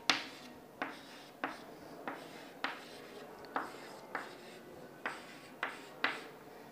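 Chalk writing numbers on a chalkboard: about ten short, sharp chalk strokes and taps at an uneven pace.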